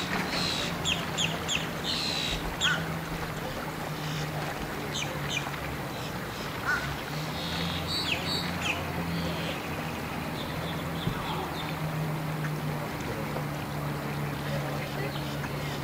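Outboard motor on a small bay boat running at idle as the boat moves slowly, a steady low hum. Birds chirp in short bursts over it, in the first few seconds and again about halfway through.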